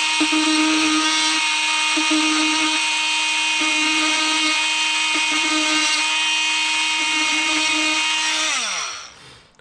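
Oscillating multi-tool with a thin 10-12 mm blade running at high speed, a steady high-pitched whine, cutting into plasterboard. At this speed the thin blade vibrates side to side and cuts a slot wider than itself. The tool winds down near the end.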